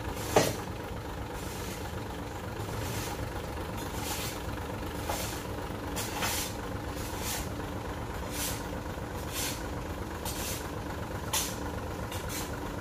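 Dump truck's diesel engine idling steadily with its tipper bed raised, while short hissing scrapes come and go every second or so. There is a single sharp knock about half a second in.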